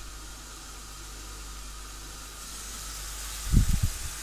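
Marinated chicken strips sizzling steadily on a ridged griddle pan over full heat, with a few low knocks about three and a half seconds in as another strip is laid down.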